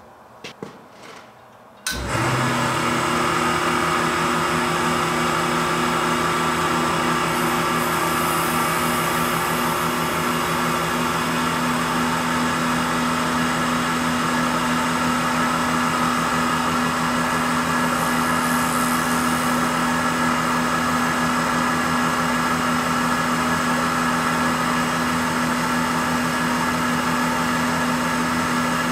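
Snap-on VR300 valve grinder switched on about two seconds in and running steadily, its motor and grinding spindle giving an even hum with a few steady tones. The spindle runs smoothly on freshly replaced bearings, pretty good now after being locked up and noisy.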